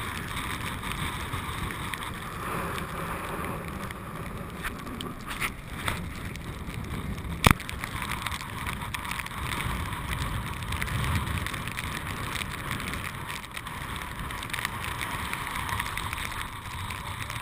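Wind buffeting a camera at the water's surface, with choppy water sloshing against it. A sharp knock about seven and a half seconds in is the loudest moment.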